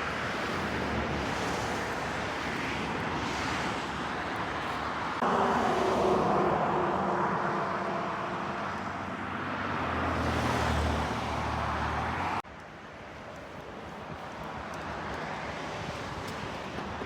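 Steady outdoor background noise with a motor vehicle's engine hum coming in abruptly about five seconds in and cutting off suddenly around twelve seconds.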